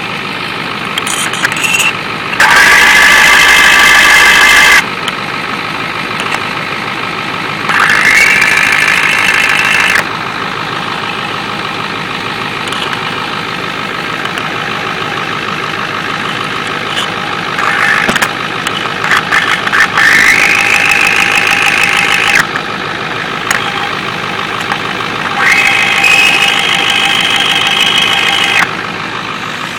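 Ford 7.3 IDI diesel idling, heard through a mechanic's stethoscope pressed against the fuel injectors and line nuts. The steady diesel clatter swells four times into a louder, ringing metallic knock, a cow-bell or pinging sound. The owner takes these for the injectors that sound different from the rest while he hunts for a miss behind a rough idle.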